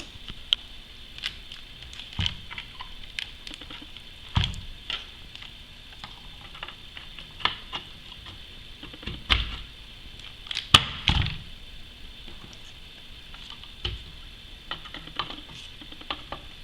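DDR4 RAM sticks being handled and pressed into a motherboard's memory slots: scattered small plastic clicks and knocks, with a few louder snaps about four, nine and eleven seconds in.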